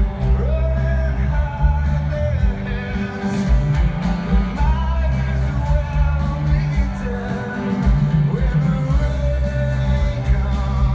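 A rock band playing live, with a lead vocalist singing over electric guitars, bass and drums, heard from the stands of a stadium.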